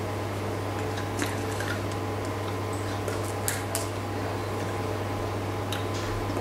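Steady low hum with a few faint clicks and smacks from a person signing silently: hands touching and lips moving without voice.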